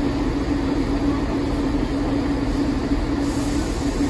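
Diesel multiple unit idling at the platform: a steady engine drone with a constant hum over a low rumble. A faint hiss joins about three seconds in.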